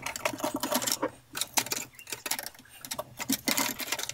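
Irregular light clicking and clattering as Roleadro T5 grow light tubes and their plug-in cables are moved around and reconnected by hand.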